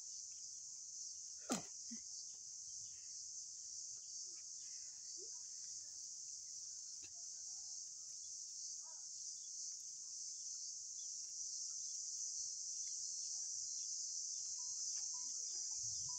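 Steady high-pitched chorus of insects, even and unbroken, with one sharp snap about a second and a half in.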